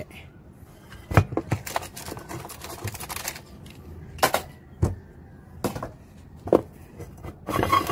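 Irregular sharp clicks and taps, some ten in all, with a short scraping rustle about three seconds in: tools and small parts being handled on an electronics workbench.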